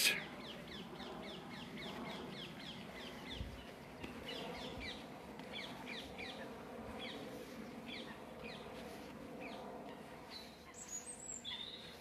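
Rose-ringed parakeets calling: a long run of short, harsh, falling screeches, several a second. A robin sings briefly near the end.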